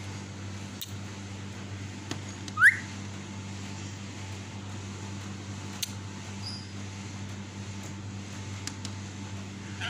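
A lutino Indian ringneck parakeet gives one short, sharp rising chirp about two and a half seconds in, over a steady low hum and a few faint clicks.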